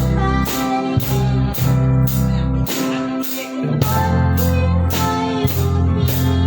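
A live band playing through the sound system at a sound check, with drums and bass. A cymbal or hi-hat keeps a steady beat about twice a second over deep, held bass notes.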